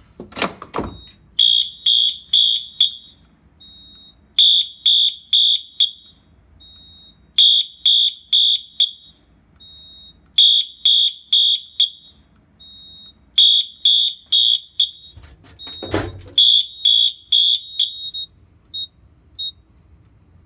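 Wheelock MT-24-LSM fire alarm horn sounding in march time, coded by the panel: groups of four rapid high-pitched beeps about every three seconds, stopping a couple of seconds before the end. It opens with the clack of a Simplex chevron pull station being pulled, and a loud clunk comes about three-quarters of the way through.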